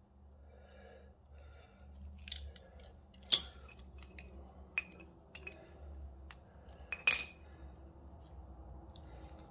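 Scattered sharp metallic clinks and clicks of pliers working against an Indian Scout Bobber's front brake caliper and pads as the caliper pistons are levered back in, with two louder clinks about a third of the way in and about three-quarters in. A faint low hum runs underneath.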